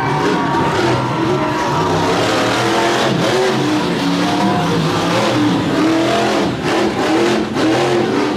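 Monster truck engine revving hard, its pitch rising and falling again and again.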